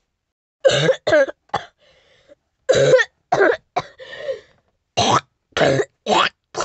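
A person's voice making short coughing, grunting outbursts, about ten in quick succession in three clusters: a plush character's pained coughs as it is punched.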